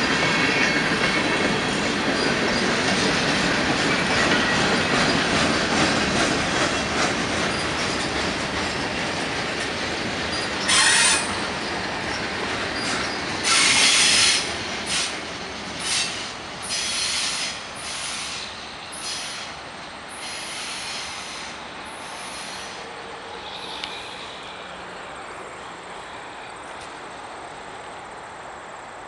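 Freight cars of a CN mixed freight train (boxcars and tank cars) rolling past on steel wheels, the rumble slowly fading as the train moves away. From about a third of the way in come a dozen short, high screeches from the wheels.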